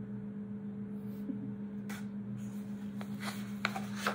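A page of a hardcover picture book being handled and turned, with soft paper rustles and a few light clicks in the last second or two. Under it runs a steady low hum.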